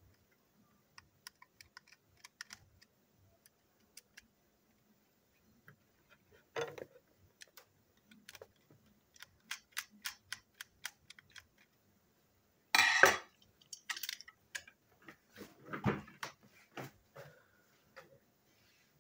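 Small, scattered clicks and ticks of a screwdriver working a screw out of a model steam locomotive's chassis, then louder knocks and clatter of the loosened parts and the screwdriver being handled and set down on a table, the loudest about two thirds of the way through.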